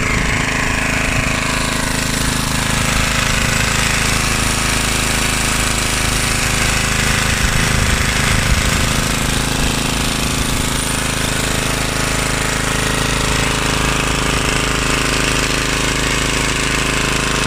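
Briggs & Stratton 3.5 hp, 148 cc side-valve, vertical-shaft engine of a 1976 Hayterette rotary lawnmower, running steadily.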